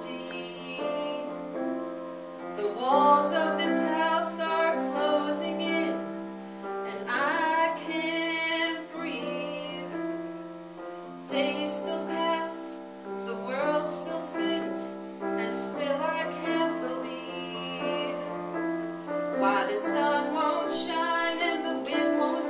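A woman singing with piano accompaniment.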